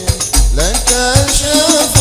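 Arabic devotional qasida sung by a lead voice, sliding between notes, over hand-played frame drums with sharp slaps and long, deep booming bass strokes.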